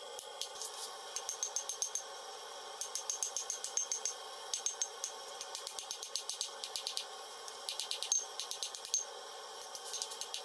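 Hand hammer striking a red-hot steel billet on an anvil in quick runs of ringing blows, several a second, with short pauses between runs.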